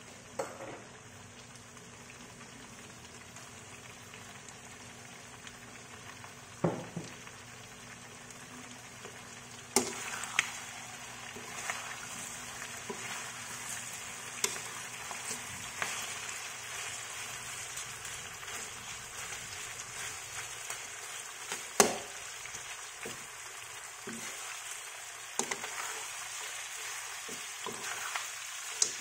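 Pork adobo frying in a wok, a steady sizzle that grows louder about ten seconds in. A metal slotted spatula scrapes and clacks against the pan now and then as the meat, potatoes and onions are stirred.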